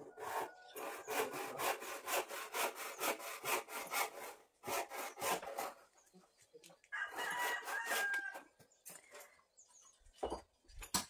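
Chickens clucking in a fast, rhythmic run for several seconds, then a rooster crowing once, about seven seconds in. A few knocks come near the end.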